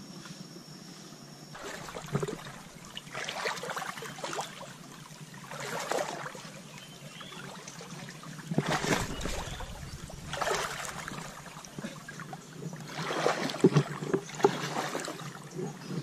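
Footsteps wading through a shallow forest stream, the water sloshing and splashing in uneven surges every second or two.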